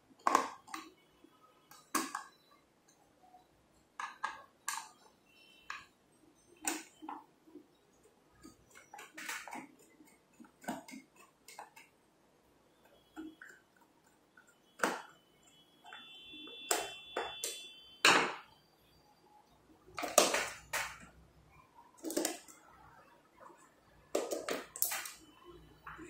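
Irregular sharp clicks and taps of a small screwdriver and the plastic battery cover of a smart lever lock being handled and opened, with a short high steady tone about sixteen seconds in.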